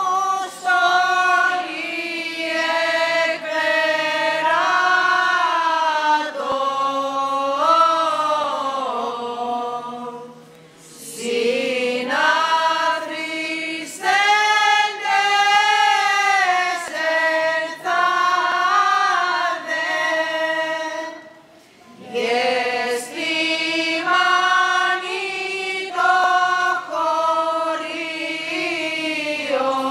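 Byzantine chant sung by a group of voices: long, slowly moving melismatic phrases, broken by two short pauses, one about a third of the way through and one about two-thirds of the way through.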